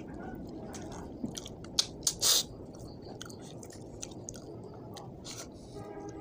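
A person chewing rice and fish head with the mouth open, wet smacking and clicking mouth sounds, the loudest a cluster of sharp smacks about two seconds in.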